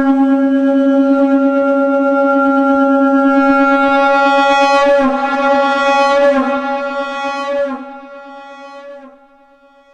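Shankh (conch shell) blown in one long held note pitched at C#, starting abruptly, growing brighter around the middle, then fading away about eight seconds in.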